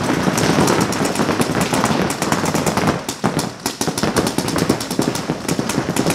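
Paintball markers firing in rapid, overlapping strings of shots, with a brief lull about three seconds in.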